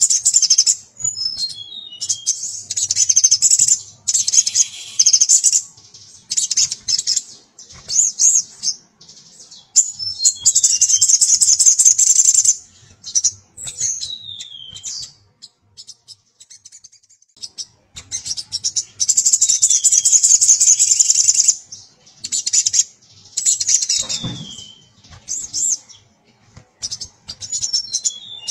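Male olive-backed sunbird (sogon) singing: repeated bursts of fast, high-pitched trilling chatter, each one to three seconds long, with short down-slurred notes in the pauses between. It is the male's call to a female.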